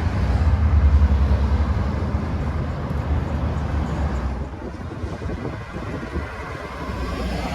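Street traffic: a motor vehicle's low engine rumble, strongest for the first few seconds and fading away about four seconds in, leaving a quieter street background.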